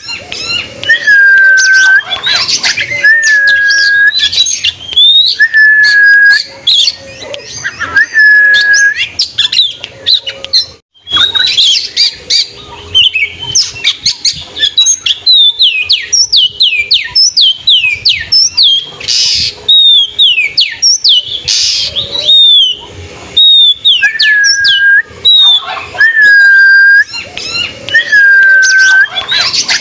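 Oriental magpie-robin (kacer) singing loudly. It gives a string of clear whistles, each held at one pitch after a quick upward flick. About twelve seconds in the song changes to a fast run of sharp falling notes, and the held whistles come back about two thirds of the way through.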